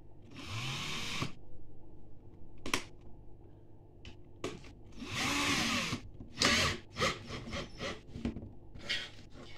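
Cordless drill motor run in short bursts as a bit is fitted into its chuck: a brief spin-up about half a second in, a longer run around the middle with the pitch rising and falling, then several quick trigger pulses, with a sharp click in between.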